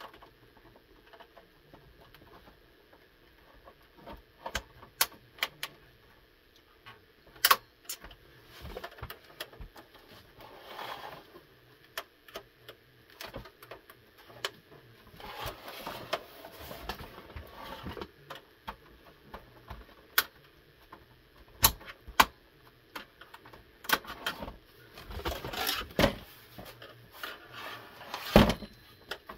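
Plastic clicks, snaps and scraping as an Xbox 360 S console case is handled and worked open by hand. Irregular clicks come throughout, with a few longer stretches of rubbing.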